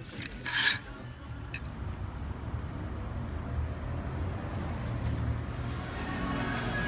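Plastic clothes hangers clack once on a rail about half a second in, then a steady low rumble of outdoor traffic runs on. Steady tones come in near the end.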